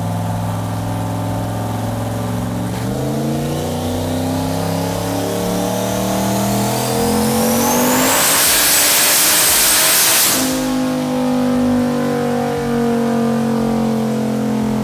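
Turbocharged 5.3-litre V8 making a pull on a chassis dyno. It runs steadily, then about three seconds in climbs in pitch with a rising turbo whistle. It is loudest at full throttle about eight to ten seconds in, then the throttle closes and it drops back suddenly. The turbo is slow to build boost.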